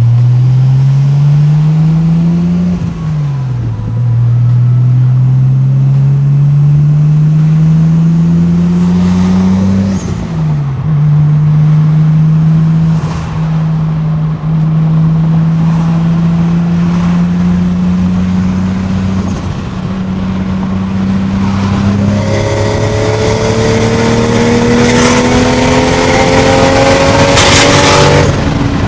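Turbocharged 1JZ inline-six in a Toyota Supra accelerating on the road: the engine note rises through the revs, drops with an upshift twice, then pulls steadily in a higher gear, getting louder with a rushing hiss over the last several seconds before cutting off at the end.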